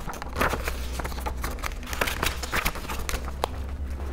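Pages of a book being turned by hand: paper rustling and crackling with small clicks, over a low steady hum.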